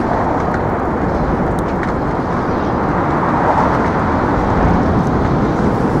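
Steady noise of vehicle traffic on the Manhattan Bridge, an even wash of sound with no distinct passing events.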